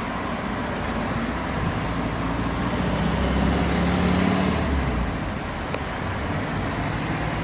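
Street traffic noise: a motor vehicle's engine runs nearby over a steady road hum, growing louder for a couple of seconds around the middle as it passes, then easing off.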